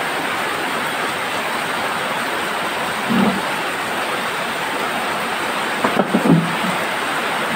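Steady, even rushing hiss like rain or heavy background noise, with brief faint voices about three and six seconds in.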